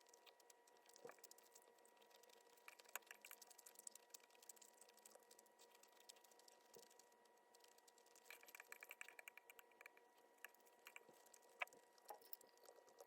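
Near silence with faint scattered clicks and taps, a cluster of quick ticks about two thirds of the way in, over a steady faint high hum.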